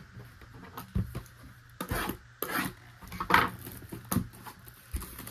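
Hands handling a cardboard trading-card box: a run of scrapes, rubs and light knocks as it is slid and lifted on the table.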